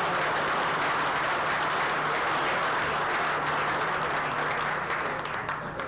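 An audience applauding, a dense patter of many hands clapping that dies away near the end.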